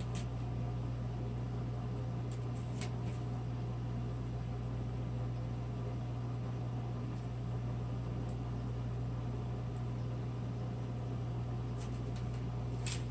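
Steady low hum with an even hiss over it, and a few faint clicks.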